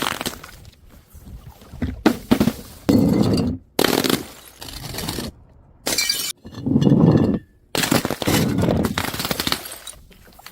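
Glass bottles smashing and shattering, one after another, each a sharp impact followed by crunching and tinkling glass. The sound breaks off abruptly several times between smashes.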